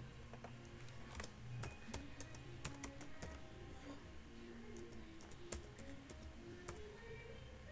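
Faint, irregular key clicks from typing on a computer keyboard.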